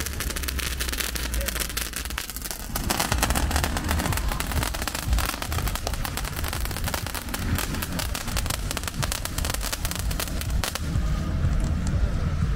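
Firecrackers going off in rapid crackling strings of many small bangs, thinning out near the end, over a steady low rumble.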